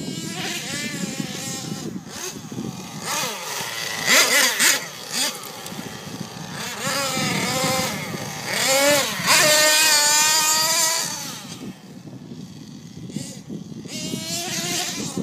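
Small nitro engine of an RC monster truck revving in repeated bursts, its pitch rising and falling with the throttle. It is loudest and held at high revs for a couple of seconds about two-thirds of the way through.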